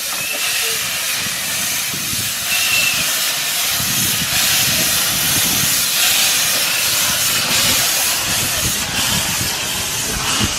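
Narrow-gauge Hunslet 0-4-0 saddle-tank steam locomotive hissing steadily, steam escaping from its cylinder drain cocks as it pulls its train away, with the low rumble of the carriages rolling past.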